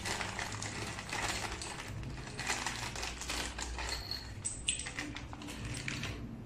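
Thin clear plastic bag crinkling as hands handle and open it, with the small rubber footrest stoppers inside shifting and clicking. Dense crackling that thins out after about four seconds, leaving a few sharp clicks.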